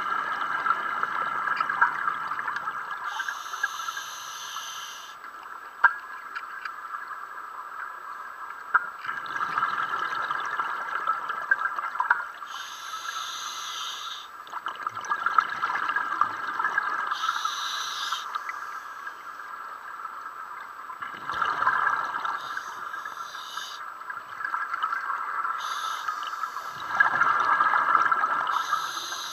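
Scuba diver breathing underwater through a regulator: a hissing inhale, then a longer bubbling exhale, about five breaths at uneven intervals.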